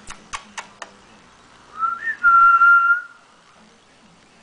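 A person whistling one short call: the note rises, flicks briefly upward, then holds steady for nearly a second. It comes after four quick, sharp clicks in the first second.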